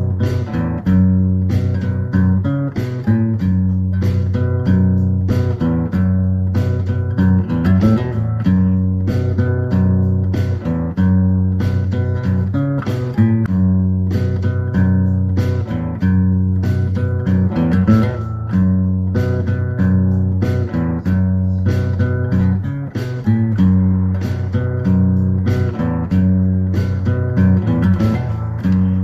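Background music: plucked guitar with a steady rhythm and a repeating bass line.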